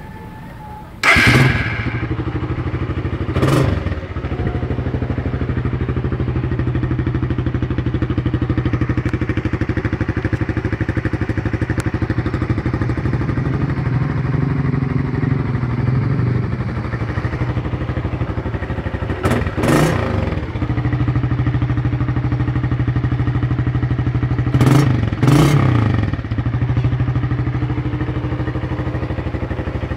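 Suzuki Raider R150's single-cylinder two-stroke engine starting about a second in, then idling steadily. The throttle is blipped briefly a few times: once soon after the start, once near the middle, and twice in quick succession later on.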